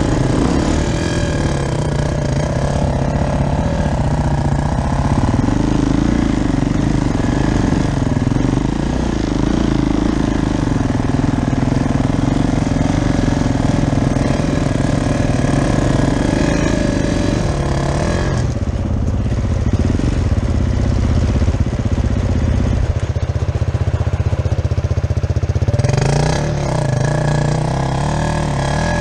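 Single-cylinder enduro dirt bike engine, a Husaberg FE450, running at low to middling revs on a slow trail climb. About two-thirds of the way through the note drops lower and duller, then picks up again near the end.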